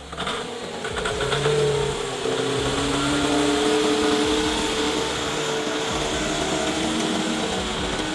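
A heavy machine's engine running steadily, getting louder about a second in, with a droning pitch that drifts slightly up and down.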